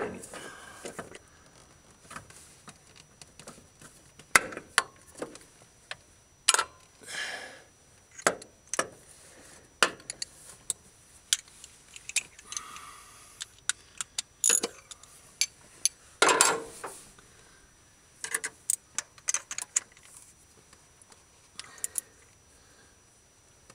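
Hand tools clinking and clicking on metal as a spark plug is run into the cylinder head of a Ford 300 straight-six and tightened: scattered sharp clicks and short rattles, with a louder cluster of knocks about two-thirds of the way through.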